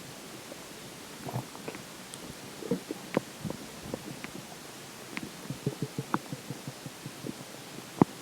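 Stomach gurgling with water in it: a run of short, irregular pops and gurgles, the loudest pop near the end.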